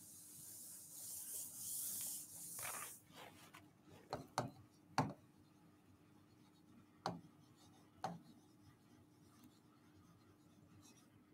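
Faint rubbing of a hand wiping writing off a board for about three seconds, then several short sharp taps and strokes of writing on the board.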